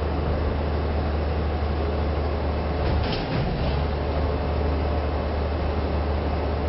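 Sound effect of a garbage truck's engine running: a steady low rumble with a hiss over it.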